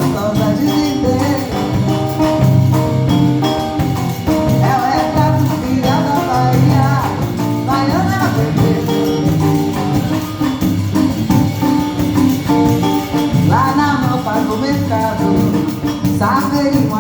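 Samba played by a band, with a moving bass line under melodic phrases.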